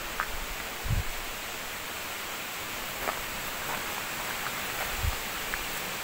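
Steady rushing noise of the waterfall's falling water. Two low footstep thumps on the metal stairway come about a second in and near the end.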